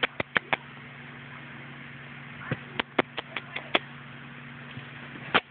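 A series of short, sharp clicks over a steady low hum: four quick clicks at the start, a run of about six in the middle, and one more near the end.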